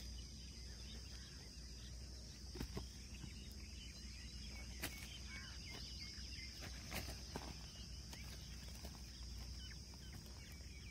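Faint steady trill of insects, likely crickets, in the background, with a few soft clicks and rustles of a hand picking small fish out of gravelly soil.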